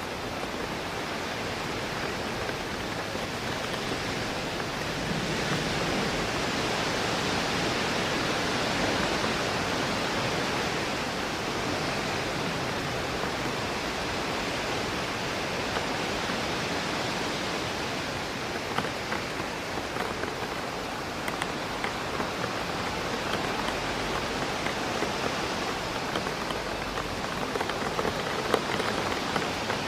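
Steady rain hitting a window, with wind through trees filling in a constant rushing hiss that swells slightly a few seconds in. Scattered sharper taps of individual drops come through in the second half.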